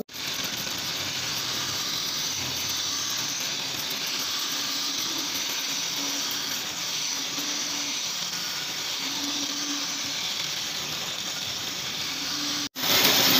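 Wood lathe turning a wooden axe handle while a hand chisel cuts into it, giving a steady hiss of shavings peeling off. The sound breaks off for an instant near the end.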